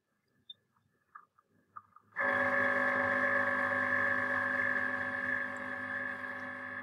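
Cricut Explore Air 2 cutting machine running with a steady, multi-toned motor hum as it connects, starting about two seconds in and cutting off abruptly, after a few faint clicks.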